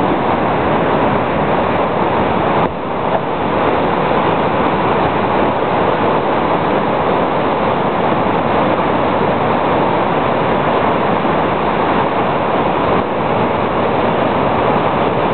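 Flood-swollen creek rushing through white-water rapids: a loud, steady rush of water.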